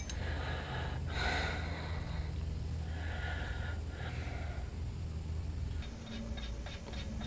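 A man breathing audibly as he works, a few puffs of breath clearly heard. About six seconds in comes a short run of faint light metallic clicks from a nut and bolt being handled, over a steady low hum.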